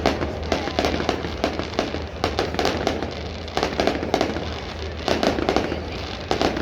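Fireworks display going off in a continuous barrage: rapid sharp cracks and bangs, with heavier booms about every second.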